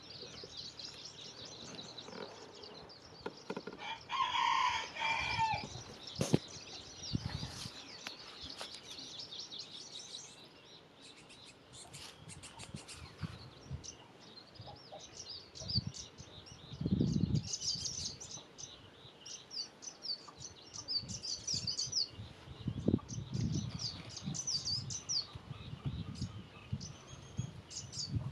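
Small birds chirping in quick, scattered high notes, with one longer, lower call about four seconds in and a few soft low bumps.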